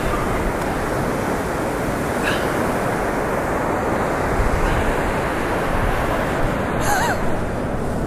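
Ocean surf breaking and washing up a sandy beach, a steady rush, with wind on the microphone.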